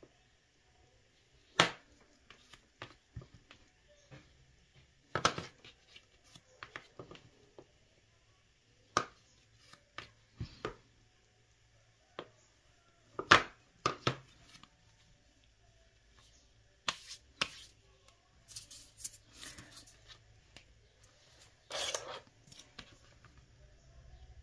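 Scattered short knocks and clicks of hand tools on a work surface while cold porcelain (biscuit) clay is being rolled out, the loudest about halfway through and a longer rubbing scrape near the end.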